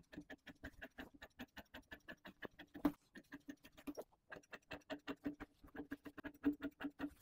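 Large tailor's scissors snipping through fabric in a steady run of cuts, about four to five snips a second, with a short break about four seconds in.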